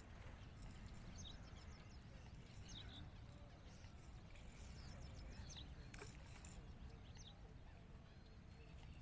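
Faint outdoor ambience: small birds chirping, short high notes every second or so, over a low steady rumble, with a couple of faint clicks.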